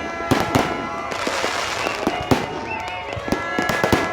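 New Year fireworks going off in quick succession: a string of sharp bangs and pops, with a burst of dense crackling about a second in.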